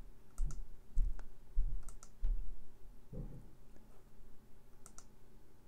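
A computer mouse clicking a handful of times, scattered short sharp clicks mixed with a few dull low thumps from handling on the desk.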